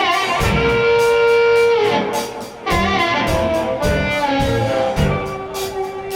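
Live rock band playing: a steady drum and cymbal beat under long held lead notes and a bass line.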